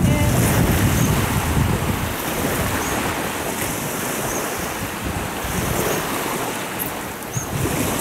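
Wind buffeting the microphone over small waves washing onto a sandy shore. The low wind rumble is heaviest in the first couple of seconds, then eases to a steady rush.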